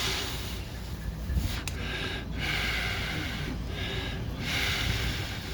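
A man breathing hard and noisily in long breaths of about a second each, a few in a row, as he strains to turn a stuck set screw.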